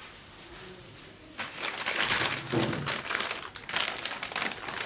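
Courier packaging crinkling as it is handled, starting about a second and a half in.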